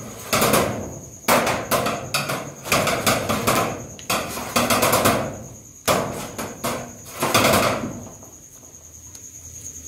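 Bursts of sharp clicking and tapping as chrome cover caps are pushed and twisted onto screw heads on a metal-framed sign board, about six bursts over eight seconds. Crickets chirp steadily behind.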